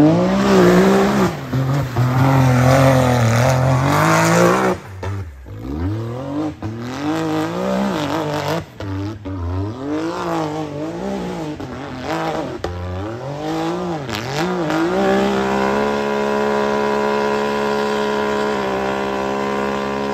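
A rock bouncer's race engine revving hard, its pitch rising and falling over and over as the throttle is worked, with a brief drop about five seconds in. For the last few seconds it holds a steady high pitch, then stops suddenly.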